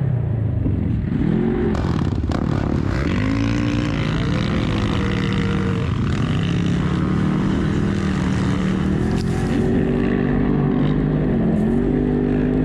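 Vehicle engine running hard off-road, its pitch rising and falling over and over as it revs up and eases off.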